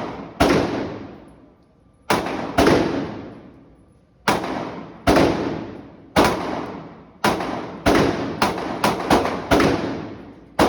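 A firearm fired about a dozen times at an uneven pace, each sharp shot followed by a ringing echo that dies away. The shots come a second or more apart at first, then faster, about two a second, in the second half.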